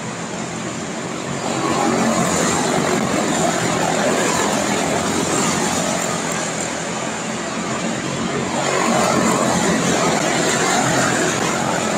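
A pack of quarter midget race cars with Briggs & Stratton Animal single-cylinder engines running at racing speed around an oval. The engine noise swells twice as the cars pass near.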